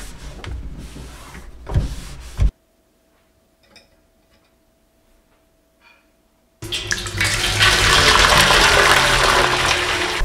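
A cloth rubbing over a wet stainless-steel sink. After a few seconds of near silence, tap water starts a little past halfway and pours loudly and steadily into a stainless-steel basin.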